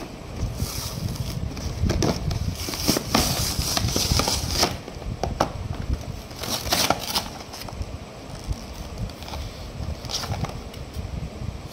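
Toy blister packaging being opened by hand: the card backing tears and rustles while the clear plastic shell crackles and crinkles. The crackling is heaviest in the first half and again about seven seconds in, then thins to a few softer crackles.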